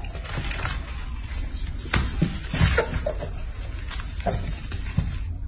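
A baby monkey and a piglet tussling on artificial turf: scuffling and a few soft knocks, with several short squeaks around the middle, over a steady low background rumble.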